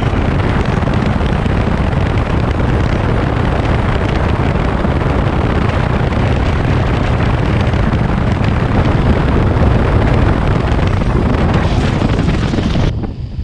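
Daelim Daystar 125 cc V-twin motorcycle engine running at steady road speed, mixed with heavy wind noise on the microphone. Just before the end the wind hiss drops away abruptly and the sound becomes quieter.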